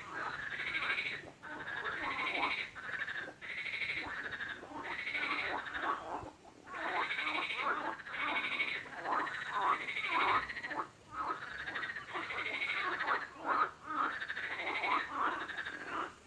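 Frogs croaking in a chorus, pulsed trilling calls following one another almost without pause, broken by a few brief gaps.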